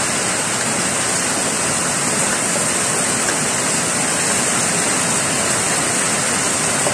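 Heavy rain pouring down in a steady, loud hiss, blended with the sizzle of sliced shallots and ginger frying in hot oil in a wok.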